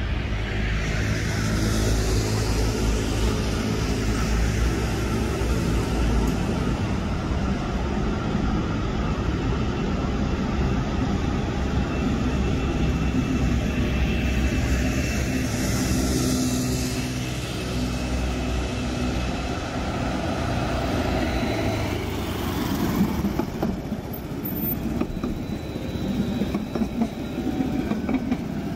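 Alstom Citadis tram running along its track over a steady rumble of street traffic. Near the end, a motor scooter idles close by.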